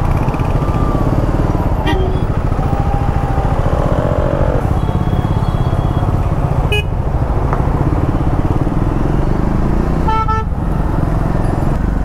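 Triumph Scrambler 400X's single-cylinder engine running steadily at low speed in heavy traffic, with the low engine and road noise filling the sound. Vehicle horns honk briefly around it three times, the last one about ten seconds in and a little longer.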